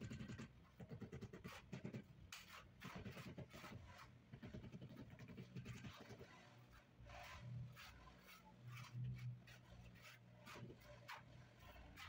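Faint, irregular knocks and scrapes: a rubber mallet tapping a large ceramic floor tile down into its mortar bed, and a shovel scraping through sand and cement mortar.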